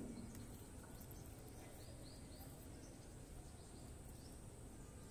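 Near silence: faint room tone with a few faint high chirps about two seconds in.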